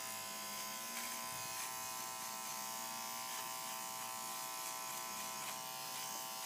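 Electric hair clipper buzzing steadily as it trims the long hair between a dog's toes.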